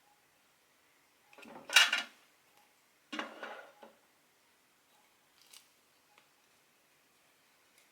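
Small scissors snipping cotton embroidery thread, with light handling noise: two short bursts a little over a second apart, then a few faint ticks.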